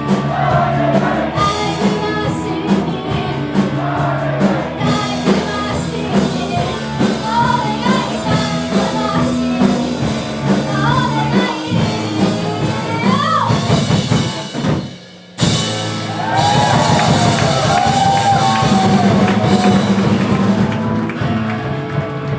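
Rock band playing live with a singer. About two-thirds through the music breaks off for a moment, then comes back in a loud held chord under a long wavering vocal note.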